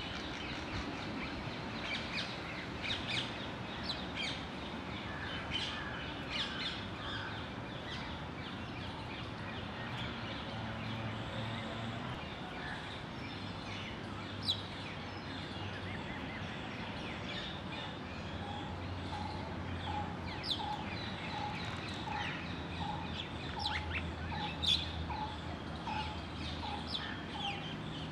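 Wild birds chirping, with many short, high calls scattered through. About two-thirds of the way in, a steady series of a single repeated lower note begins, roughly two a second.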